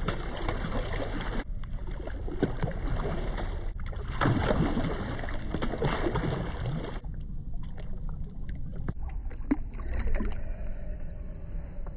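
Water splashing and sloshing as a hooked clown knifefish thrashes at the surface beside the boat, in uneven bursts.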